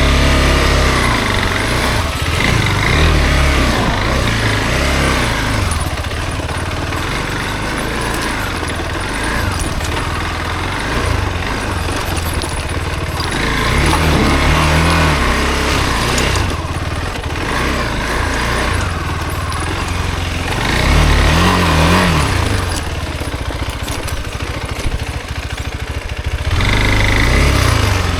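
Single-cylinder dual-sport motorcycle engine running under way off-road, its revs rising and falling several times with throttle.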